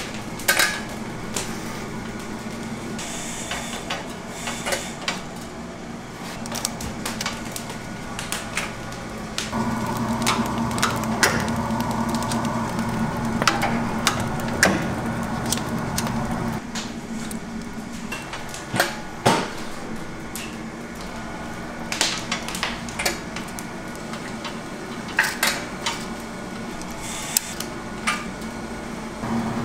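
Kitchen prep clatter: irregular knocks and clinks of utensils and containers being handled. A steady low hum comes on about ten seconds in, stops a few seconds later and starts again near the end.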